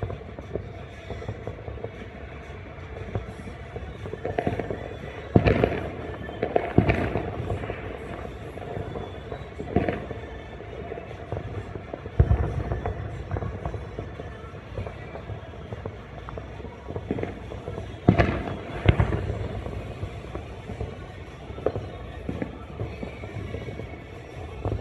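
Aerial fireworks going off: sharp bangs at uneven intervals, the loudest clusters about five seconds in and about eighteen seconds in.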